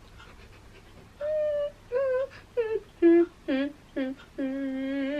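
A woman humming a song's melody in a string of short separate notes, the last one held long, for another player to guess the song.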